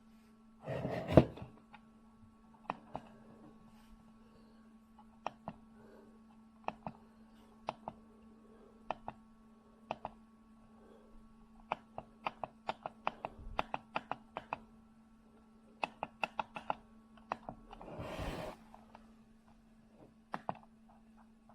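Small objects handled on a hard surface: irregular clicks and knocks, with a louder thump about a second in and a brief rustle near the end. A faint steady hum runs underneath.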